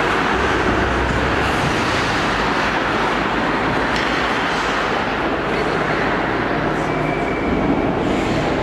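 Steady rumbling background noise of an indoor ice rink, even and unchanging throughout.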